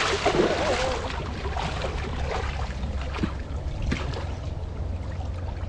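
Water splashing during the first second, then lighter water sounds over a steady low rumble.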